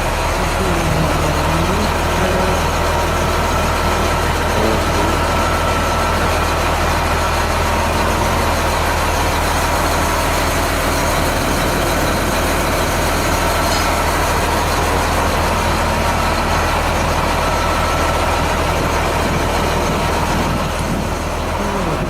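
School bus Caterpillar C7 diesel engine idling steadily with an even low drone.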